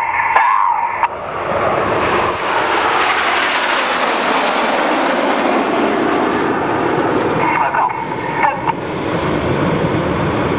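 BAE Hawk jets of the Red Arrows flying past in formation: the jet noise swells over the first couple of seconds, is loudest about four seconds in, then eases to a steady rush.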